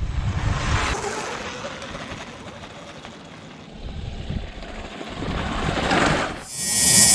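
Sur Ron X electric dirt bike riding by on a rocky dirt road, tyres crunching on gravel under a quiet motor whir, loudest as it passes about six seconds in. A bright rising swoosh follows near the end.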